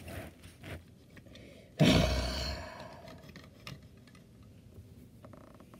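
A person's heavy sigh about two seconds in, breath blowing on the microphone and trailing off over about a second, with a few faint small clicks.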